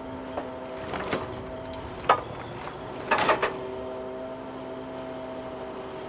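Hydraulic log loader running steadily with a machine hum, while its grapple lets go of a log onto the logs on the deck. Sharp knocks and clunks come from the grapple and the settling logs: one about a second in, the loudest just after two seconds, and a cluster a second later.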